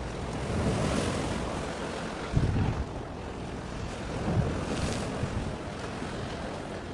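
Wind buffeting the microphone in low gusts, a few seconds apart, over a steady wash of sea waves.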